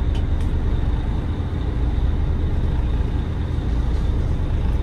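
A motor yacht's engine running steadily under way, a continuous low rumble with no change.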